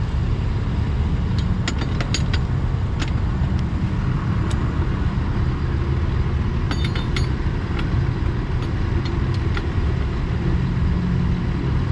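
Vehicle engine idling steadily, with scattered clinks and taps from hands-on work on the tracked carrier's loose track and running gear.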